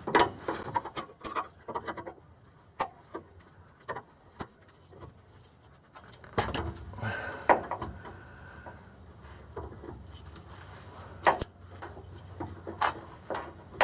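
Flare wrenches clinking and scraping on the steel fuel-line nuts of a canister fuel filter, in irregular metallic clicks with a few louder knocks.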